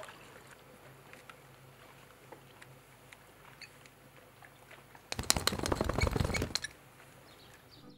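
A brown hyena shaking its wet shaggy coat: a burst of rustling, flapping noise about five seconds in that lasts about a second and a half. Before it, only faint small ticks.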